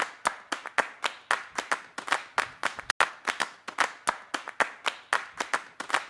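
Rhythmic hand clapping, a quick run of sharp claps at about four to five a second, in an even beat.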